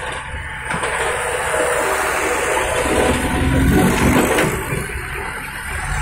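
Trucks driving past close by, their engines and tyres building to a peak about four seconds in.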